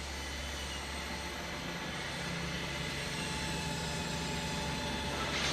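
Factory machinery running with a steady hum. The hum shifts to a slightly higher tone about two seconds in, and a short hiss of released air comes near the end.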